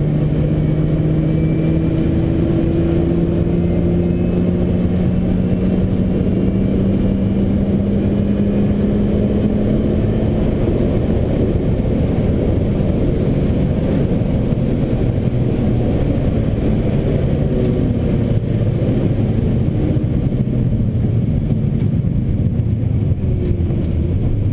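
Nissan GT-R's twin-turbo V6 heard from inside the cabin under hard driving. Its note rises slowly through a long pull for about the first ten seconds, then is buried in a dense rush of road noise from the wet track, settling to a lower steady note near the end.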